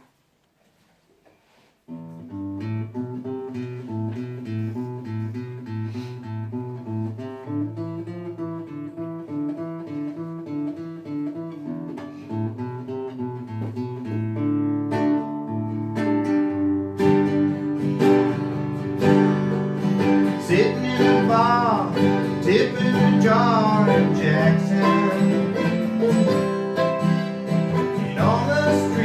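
Acoustic guitar playing a country-style song intro, starting about two seconds in after near silence. Past the halfway point the music fills out and grows louder, with sliding notes bending up and down.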